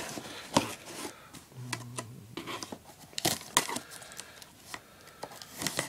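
Cardboard shipping box being handled and turned over by hand: irregular scrapes, rustles and sharp taps of the cardboard.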